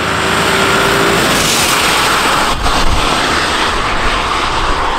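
Audi A6 C6 with the 4.2-litre V8 and an Eisenmann exhaust passing by on a wet road. The engine note is steady until about a second in. A loud hiss of tyres on wet tarmac peaks about a second and a half in, then fades as the car drives away.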